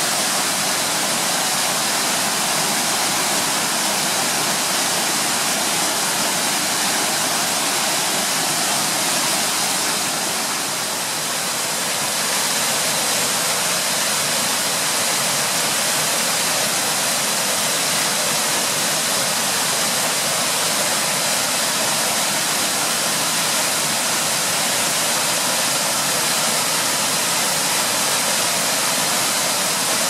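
A tall, narrow waterfall of about 35 m pouring down a rock face into its pool: a steady, even rush of falling water.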